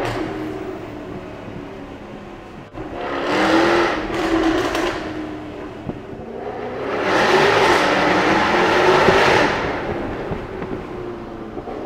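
Jaguar F-Type R's supercharged 5.0-litre V8 heard from inside the cabin, accelerating hard twice. The exhaust note swells and climbs about three seconds in and again, longer and louder, about seven seconds in, then eases back.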